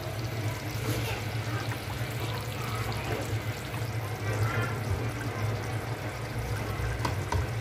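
Mutton nihari gravy boiling in an open pressure cooker pot: a steady bubbling over a low, steady hum.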